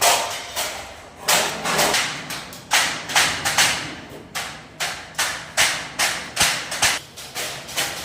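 A run of sharp knocks or thuds at an uneven pace, about two a second, each ringing out briefly.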